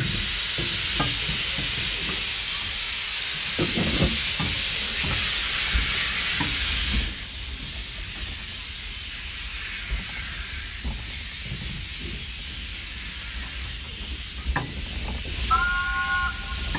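Small 0-4-0 industrial steam locomotive hissing loudly with steam as it moves off with its wagons. After about seven seconds the hiss drops away to quieter running with scattered knocks. A brief high-pitched tone sounds near the end.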